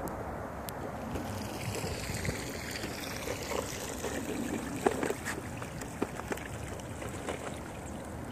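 Child's tricycle wheels rolling through a shallow meltwater puddle, water swishing and trickling, with light rattles and a sharp click about five seconds in.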